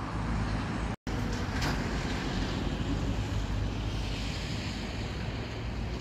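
Wind noise on the microphone: a steady low rush with no distinct events, cutting out for a split second about a second in.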